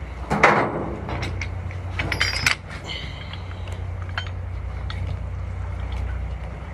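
Tugboat engine running with a steady low drone, with a loud knock about half a second in and a quick clatter of clicks and clinks around two seconds in.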